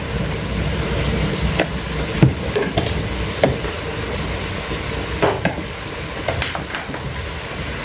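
Onions and spices sizzling in butter in a cooking pot, with a spoon knocking against the pot several times as they are stirred together.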